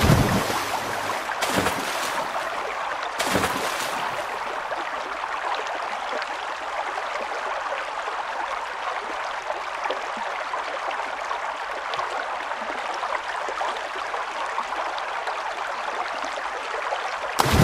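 Steady rush of running water, like a stream or small spillway, with a few brief louder surges in the first four seconds and again near the end.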